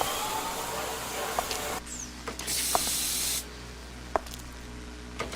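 Hissing noise that switches on and off abruptly, louder for about a second and a half near the middle, with a few sharp clicks and a short falling squeak near the start of the loud stretch; no singing.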